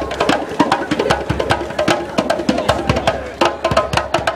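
Bongo drums played by hand in a fast, busy rhythm of sharp, ringing strikes, several a second.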